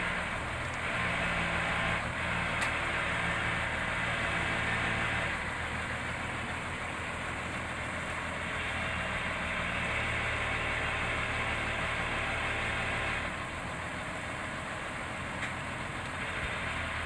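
Heavy diesel engine of the crane lorry or backhoe running steadily, with two stretches where it works harder and a higher whine rises over the drone, as during hydraulic lifting.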